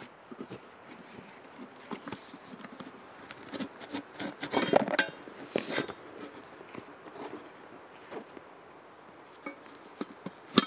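Small items being handled, with light clinks and knocks and some rustling. A louder stretch of clattering and scraping comes about halfway through, and a sharp click near the end.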